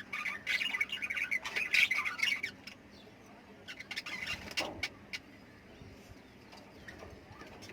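Lovebirds squawking and chattering in a rapid cluster of short calls for the first two and a half seconds, then another brief burst about four seconds in.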